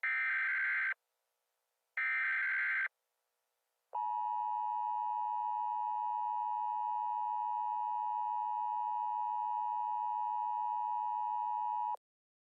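Emergency Alert System tones. First come two roughly one-second SAME header data bursts about a second apart. Then the steady two-tone EAS attention signal holds for about eight seconds and cuts off sharply, the signal that an emergency message is about to be read.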